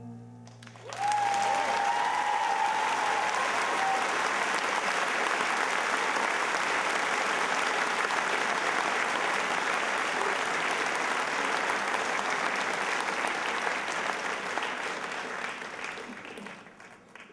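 Theatre audience breaking into applause about a second in, with one long high call held over the clapping for the first few seconds; the applause fades away near the end.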